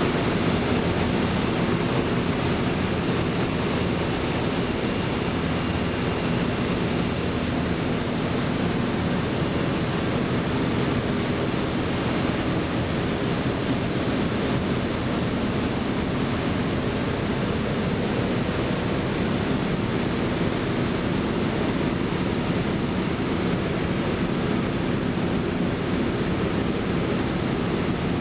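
Samp BM 630 D double twist bunching machine running at production speed: a steady, even rushing noise with faint steady tones in it.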